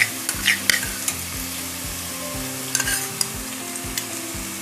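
Beef frying in hot oil in a pan, with ginger-garlic paste just added: a steady sizzle, with a few sharp scrapes and clicks of a spatula stirring it, mostly in the first second and again around the middle.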